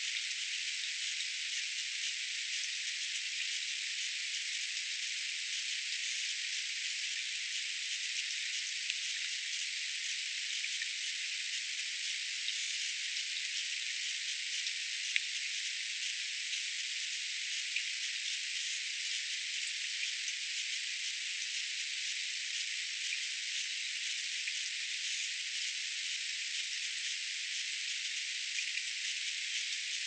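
Water spattering or trickling into a shallow bird bath: a steady, fine crackling hiss with a few small clicks and no breaks.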